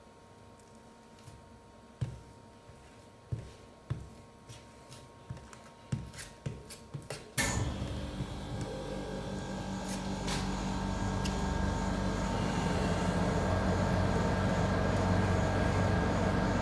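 Metal spatula clicking and scraping lightly on the steel cold plate of a rolled-ice-cream machine. About seven seconds in, a loud steady mechanical hum starts suddenly and grows slowly louder: the machine's cooling unit starting up.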